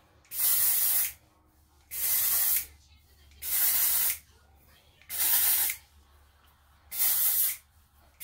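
Spray shampoo can being sprayed onto hair in five short hissing bursts, about one every second and a half.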